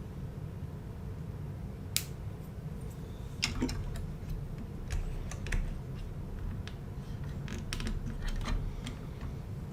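Lego plastic pieces clicking and tapping as they are handled and pressed together: a dozen or so sharp, irregular clicks over a steady low rumble.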